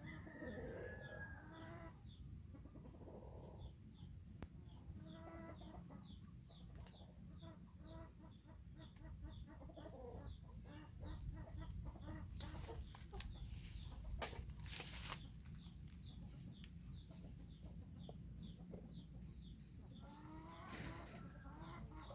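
Chickens clucking, with short high calls repeating throughout and a brief rush of noise about thirteen to fifteen seconds in.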